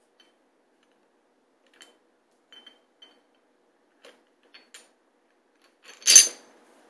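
Glass perfume bottles being handled, giving several faint light clicks and taps, then a short, loud hiss about six seconds in.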